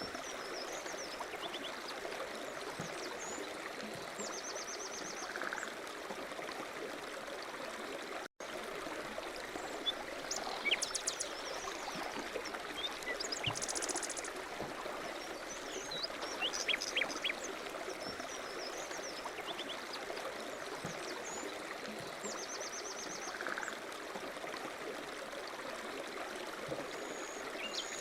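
Running water of a stream, trickling steadily, with small birds chirping and trilling above it. The sound cuts out briefly a little over eight seconds in.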